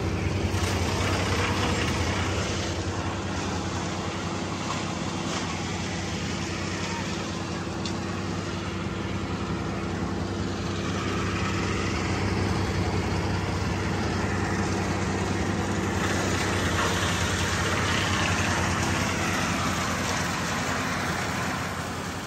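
A large engine running steadily at a constant speed, with an even low hum that fades near the end.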